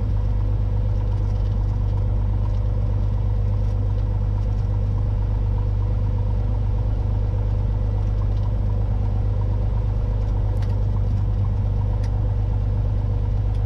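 Cessna 182T's Lycoming IO-540 six-cylinder engine and propeller running at low taxi power, a steady low drone heard inside the cabin.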